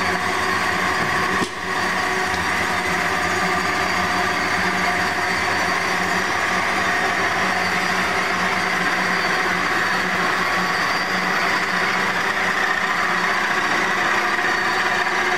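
Amada HA-400W horizontal band saw running under power, its 7.5 hp blade-drive motor and drive giving a steady machine hum with a constant whine. The sound drops out briefly about one and a half seconds in.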